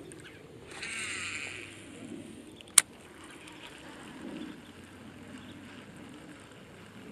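Baitcasting reel during a cast: a whirring hiss of line paying off the free-spinning spool for about a second, then a single sharp click a little under three seconds in as the reel is engaged for the retrieve.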